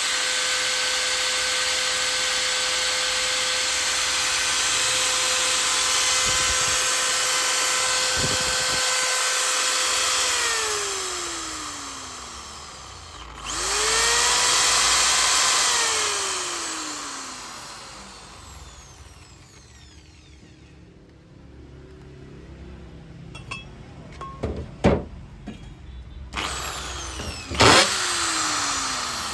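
750 W impact drill motor running at steady full speed with no load. After about ten seconds the trigger is released and the whine falls away as the motor coasts down. A few seconds later the drill is triggered briefly, spins up and winds down again, then a few clicks and one more short burst near the end.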